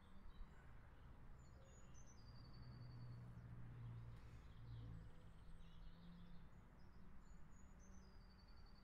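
Quiet outdoor ambience in which a small songbird sings the same short phrase twice, about six seconds apart: a high note dropping into a rapid trill. A low steady hum runs underneath.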